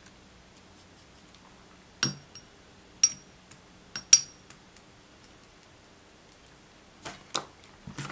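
Paintbrush clinking against a small glass water jar as it is rinsed: a handful of sharp, ringing taps over about two seconds. A few softer knocks follow near the end as the brush is put down.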